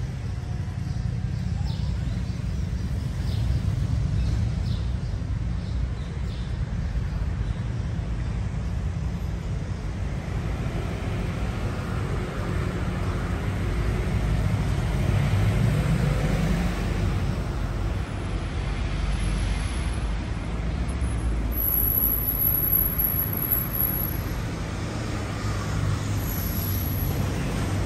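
City street traffic rumbling steadily, swelling a little around the middle as a vehicle goes by.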